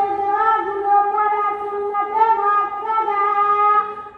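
Chanted vocal notes, held long with small steps up and down in pitch and a few brief breaks, stopping near the end.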